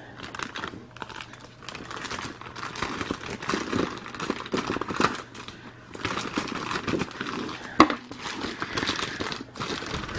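Thin clear plastic bags crinkling and rustling as the figure's parts are unwrapped and handled, with one sharp click about three-quarters of the way through.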